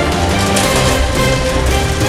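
Loud, steady theme-style music soundtrack with sustained tones over a continuous bass.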